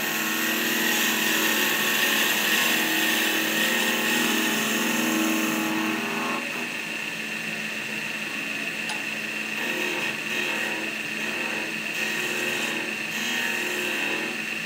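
Wood lathe running steadily while a hand turning chisel cuts the spinning wooden handle blank for about the first six seconds. After that, mostly the lathe's steady hum, with a few light tool touches near the end.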